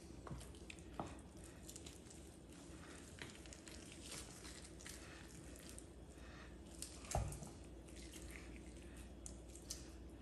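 Raw chicken leg quarter being skinned by hand: faint wet squishing as the skin is peeled back from the meat, with scattered small clicks and one slightly louder bump about seven seconds in.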